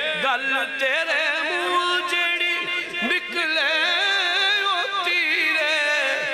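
A man's voice singing a verse in a drawn-out, melismatic style, holding long notes with wavering ornaments, through a microphone and sound system.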